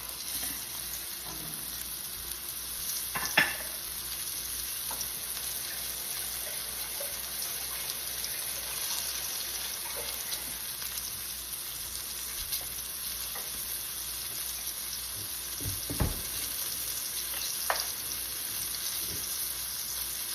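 Flour-coated chicken breast pieces sizzling steadily as they fry in a pan on low heat. A few sharp clicks break through; the loudest comes about three seconds in and two smaller ones come near the end.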